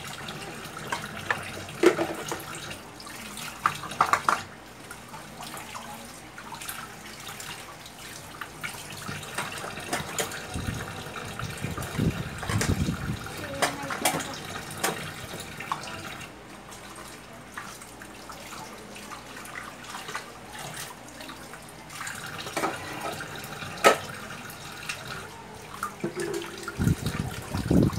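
Kitchen tap running into a stainless steel sink during dishwashing, with occasional sharp clinks of cups and plates being handled and set in the dish rack.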